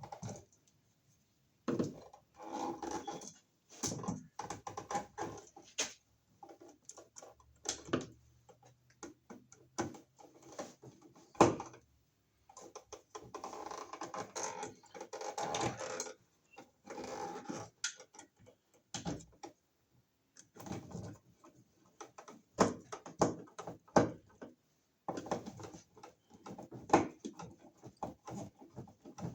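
Irregular clicks, knocks and scraping as a wall receptacle and its wires are pushed back into the electrical box and handled.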